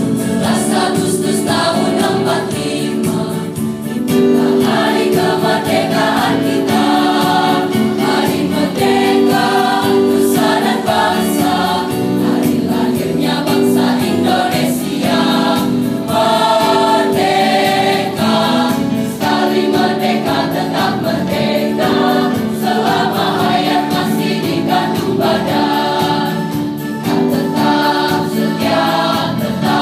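Mixed school choir of boys' and girls' voices singing a song together, sustained notes changing every second or so.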